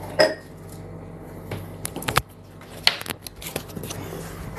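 A metal utensil clinking and scraping against a cooking pot: about half a dozen scattered clinks, the loudest just after the start, over a low steady hum.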